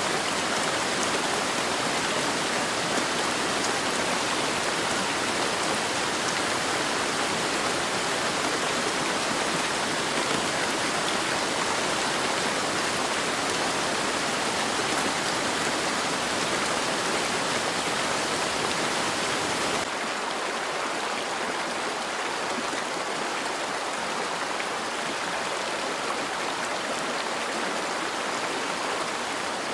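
Steady heavy rain, a dense even hiss. About twenty seconds in it changes suddenly to a slightly quieter, thinner rain.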